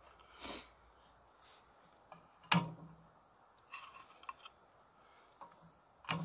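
Handling noises: a soft rustle, then a sharp knock with a short low ring about two and a half seconds in, a few small clicks, and another knock near the end.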